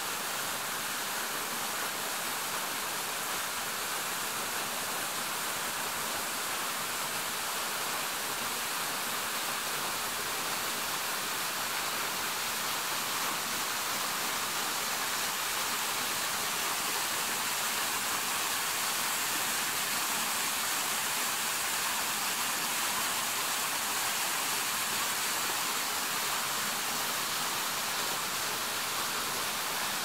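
Small mountain waterfall splashing down over rocks: a steady rush of falling water, its sound mostly high and hissy with little low rumble.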